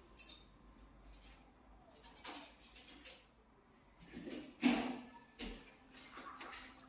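A handful of soft, separate knocks and clicks over faint background noise, the loudest about two-thirds of the way in.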